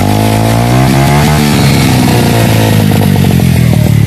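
Romet Ogar 202 moped's 50 cc four-stroke single running through an Akrapovic slip-on silencer, blipped up once and settling back to a pulsing idle.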